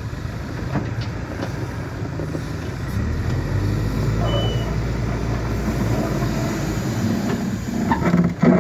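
Heavy truck engine running, pulling louder about three seconds in, with one brief high beep near the middle.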